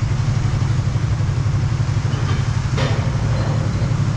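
A motorcycle engine running steadily, a low rapid pulsing with no change in speed.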